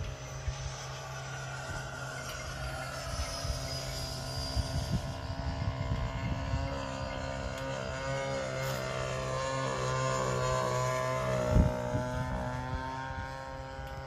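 Radio-controlled model airplane flying past: a steady motor-and-propeller drone whose pitch slowly rises and falls as it passes and the throttle changes. A single brief thump sounds near the end.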